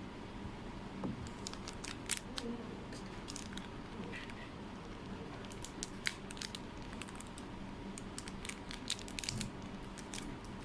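Faint handling noises: an irregular run of light clicks, scratches and rustles from working a badminton racket grip by hand.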